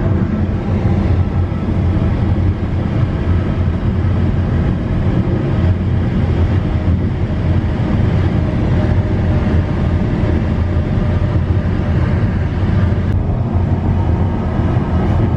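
Car driving at speed: a steady rumble of road and engine noise heard from inside the cabin.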